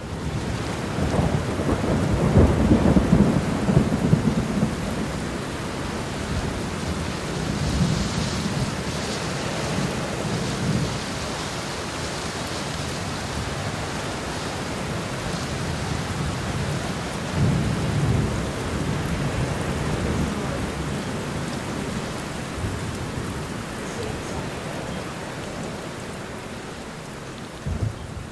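Thunderstorm: steady rain with low rolls of thunder, the heaviest in the first few seconds and again about eight and eighteen seconds in.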